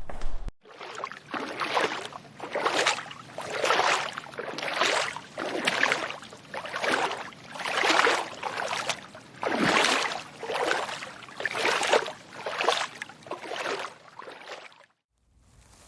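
Footsteps wading through shallow water: a slow, even walk of about one splashing, sloshing step a second. The steps stop suddenly near the end.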